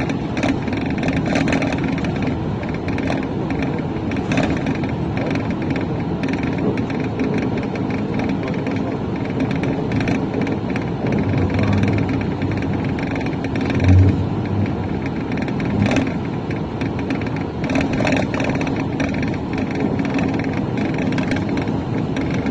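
Steady vehicle noise, with engine hum and road rush, and a few short knocks.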